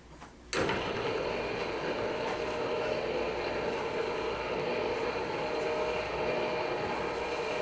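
Motorized projection screen's motor switching on about half a second in and running with a steady hum as the screen unrolls downward.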